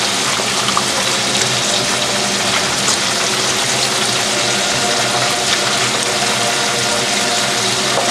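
Kitchen tap water running in a steady rush while sliced onions are rinsed by hand in a metal colander.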